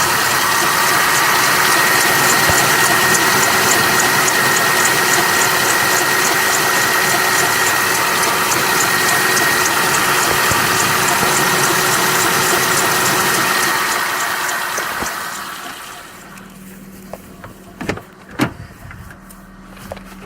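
Citroen C2 engine running after a difficult start, heard close up in the engine bay as a loud steady noise with a faint fast ticking. Near the end the noise fades away over a couple of seconds, leaving a quieter hum and a couple of sharp knocks.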